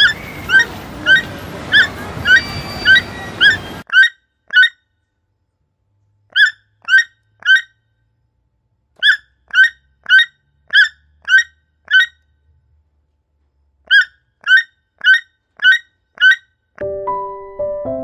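Toucan calling: short, sharp rising notes about two a second, in runs of nine, three, six and five with pauses between. A background hiss drops out about four seconds in, and soft piano music comes in near the end.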